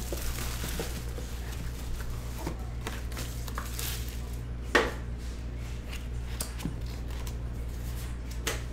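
Plastic shrink wrap being pulled off a cardboard trading-card box with a brief crinkle, then light handling clicks and one sharp knock a little before the middle, over a steady low hum.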